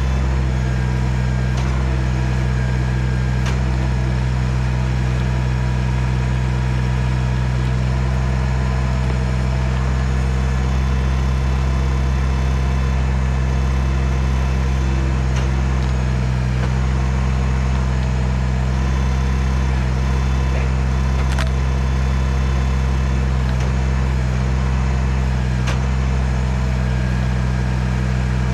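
Kubota BX compact tractor's three-cylinder diesel engine running steadily at a constant speed, with a few faint clicks or knocks scattered through.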